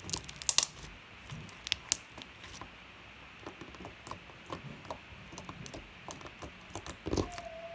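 Slime being squished, poked and stretched by hand, giving sharp wet clicks and little pops, thickest in the first second and then scattered.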